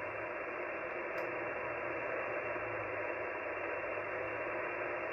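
HF amateur radio receiver hissing steadily with band noise through its speaker on an open sideband channel, with no station transmitting: the pause while net control listens for check-ins.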